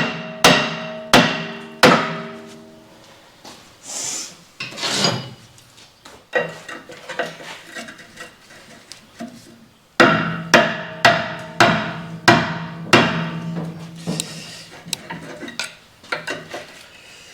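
A big hammer strikes steel on a hydraulic winch, driving out a shaft that is tight in its pillar bearing, and each blow leaves a metallic ring. There are four heavy blows at the start, lighter knocks in the middle, and from about ten seconds in a steady run of heavy blows, roughly one every half second or so.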